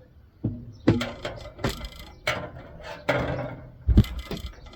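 Clatter of hard parts and tools being handled while a microwave is taken apart: a string of sharp knocks, a scrape about three seconds in, and a heavy thump near the end.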